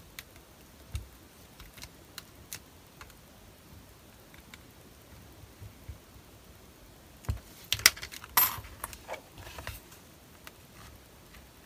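Small metal nameplate frames clinking against each other and knocking on a cutting mat as a card journal cover is moved, with a few faint taps and then a cluster of sharper clinks about seven to ten seconds in.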